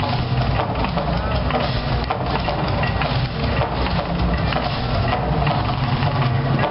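The Mirage's artificial volcano show erupting: a loud, steady deep rumble with dense crackling and popping while gas fireballs flare on the rock.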